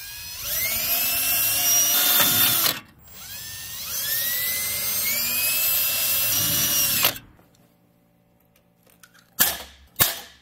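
Cordless drill boring two holes through thin galvanized sheet metal, two separate runs, each with a motor whine rising in pitch as it spins up. Near the end come two sharp snaps of a hand pop-rivet tool setting rivets.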